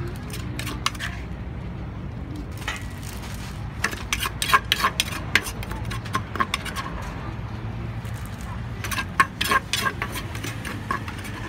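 A metal spoon scraping and clinking against the inside of a clay som tam mortar, scooping out the last of the papaya salad. The clinks come in quick runs, busiest about four seconds in and again about nine seconds in, over a low steady rumble.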